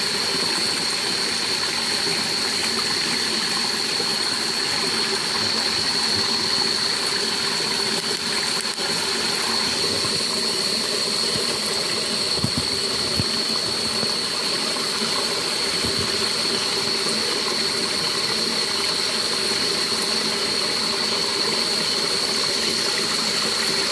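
Night insects droning steadily at one high, unbroken pitch over a constant rushing hiss of stream water.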